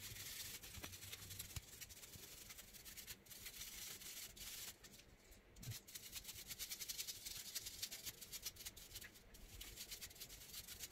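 Small hand brush scrubbing a plastic graphics-card fan shroud: faint, quick bristle-scratching strokes, with a short lull about halfway through.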